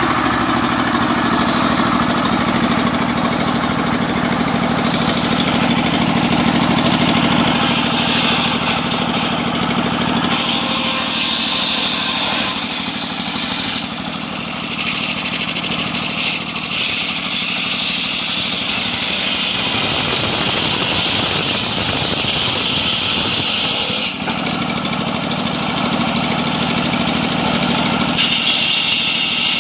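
Engine-driven homemade sawmill running continuously while milling a coconut-palm log. Its sound shifts several times, with a high hiss coming and going.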